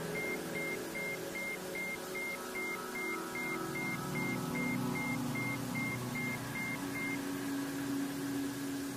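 Ambient healing-frequency meditation music: sustained low synth drones slowly shifting in pitch, with a short high beep pulsing about two and a half times a second until about seven seconds in.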